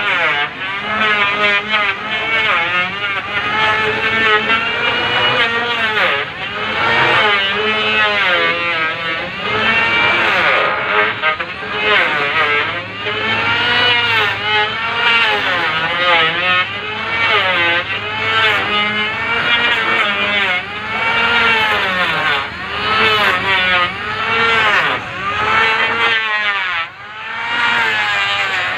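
Electric hand planer shaving a wooden boat plank. Its motor whine repeatedly sags and climbs back as each pass bites into the wood and lets go.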